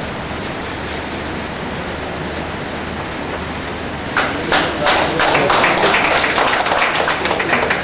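Audience clapping, rising suddenly about four seconds in and going on as a dense patter, over a steady background hum of a hall full of people.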